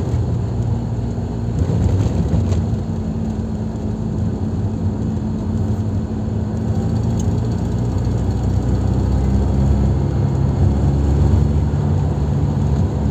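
Porsche 924 2.0's four-cylinder engine running steadily with the car under way. This is the car the owner reports knocking when gaining speed.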